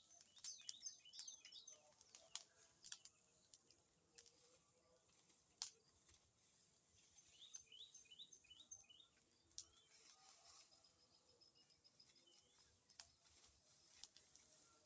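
Small birds chirping in quick runs of short, high, falling notes, once near the start and again just past the middle. Faint scattered sharp clicks sound between the runs, over a quiet outdoor background.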